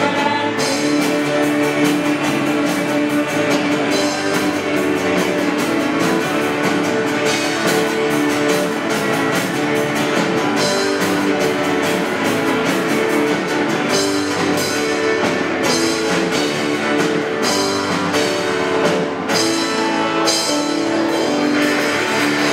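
Rock music with guitar and drums playing steadily.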